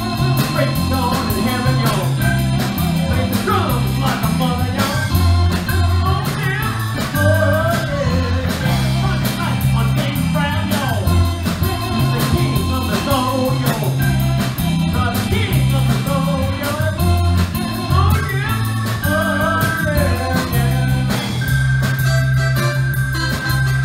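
Live band playing a blues-rock number: electric guitar, keyboard and drums over a stepping bass line, with a singing voice.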